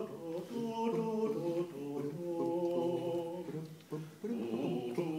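Unaccompanied singing in slow, held notes that step from pitch to pitch, like a chant.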